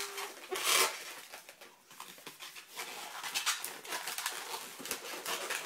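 Latex modelling balloon squeaking and rubbing under the hands as it is twisted, with one louder burst just under a second in.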